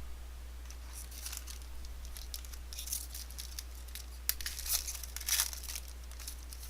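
Foil trading-card pack wrapper being torn open and crinkled: a run of irregular crackling rustles, loudest about four to five and a half seconds in, over a steady low electrical hum.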